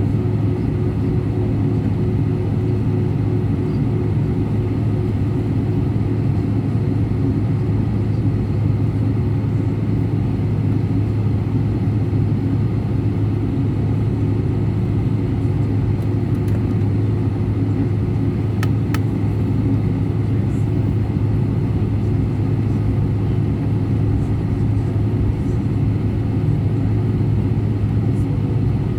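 Steady cabin noise inside an Airbus A319: a constant low drone of the engines and airflow with a strong low hum, unchanging in pitch and level.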